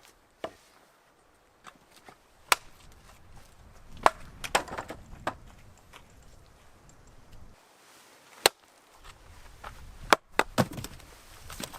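Firewood being split by hand: sharp woody knocks at irregular intervals, about eight strikes, some followed by brief crackling as the wood gives.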